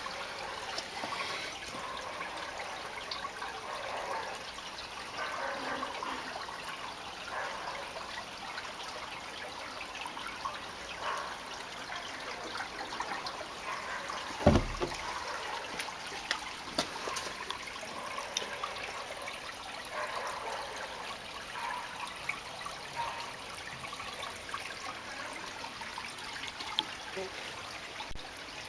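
Water splashing and trickling as polar bears wade and swim in their pool, with a single thump about halfway through.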